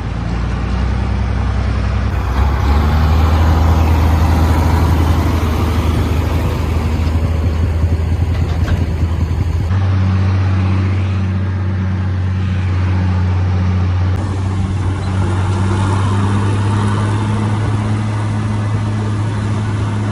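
A large farm-vehicle engine running steadily, heard up close as a loud low drone. Its tone changes abruptly about ten seconds in.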